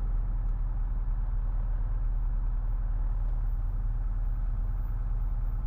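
Continental O-300 six-cylinder engine of a 1967 Cessna 172H running steadily at low power before the run-up, heard from inside the cockpit.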